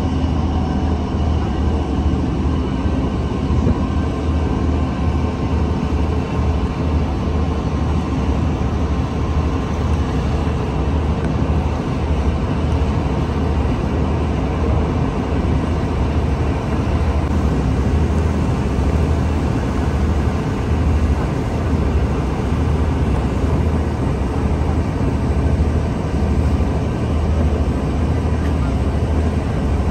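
A steady low engine drone with a constant noisy rush above it, unchanging throughout.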